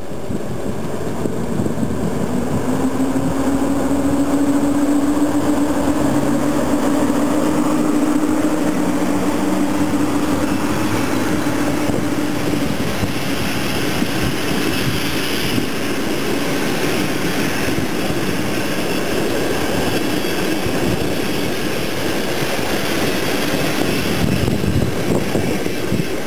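A PKP EU07 electric locomotive hauling a train of passenger carriages passes close by. For the first ten seconds or so there is a steady hum; after that the carriages' wheels run over the rails with a broad rushing noise as the coaches roll past.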